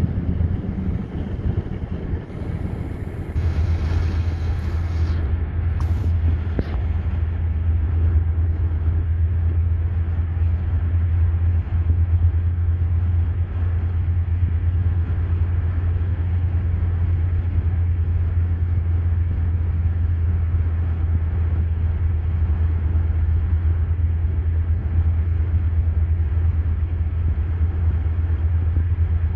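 Steady low rumble of a moving vehicle, heard from inside it, with a brief hiss about three to five seconds in.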